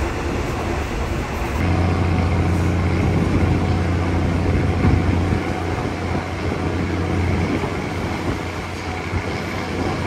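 Passenger train running along the line, heard from on board: a steady rolling rumble, with a deep hum that strengthens about a second and a half in.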